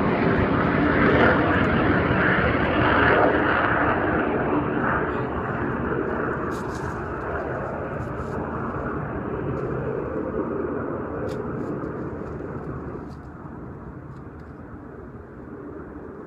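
An airplane passing overhead: a steady rushing engine noise, loudest in the first few seconds, that fades slowly away. A few faint clicks sound over it.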